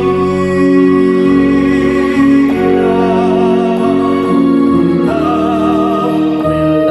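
A Marian hymn sung with long, held notes with vibrato over sustained accompaniment, the chord changing every second or two.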